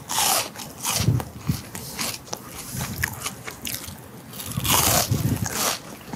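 Crunching bites and chewing of a crisp deep-fried pork loin cutlet (tonkatsu), with loud crunches at the first bite, about a second in, and again near the end, and softer chewing clicks between.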